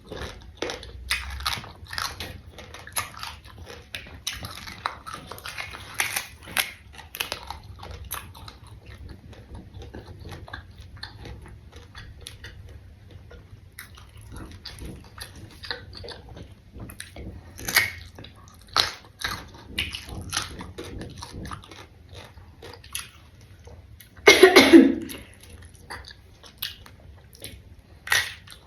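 Close-up chewing and biting of raw lalapan and fresh jengkol beans: a string of crisp crunches and mouth noises, with a pause in the middle. A short louder burst comes near the end.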